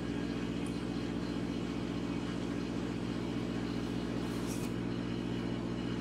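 A steady, low engine drone that holds one pitch and does not change.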